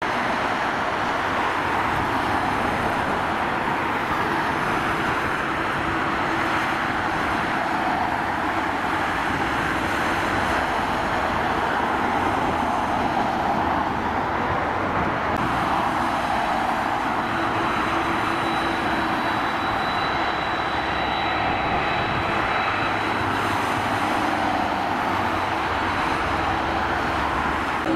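Boeing 767-300ER's twin General Electric CF6 turbofans running at taxi power: a steady jet rumble and hiss, with a thin high whine coming in for a few seconds past the middle.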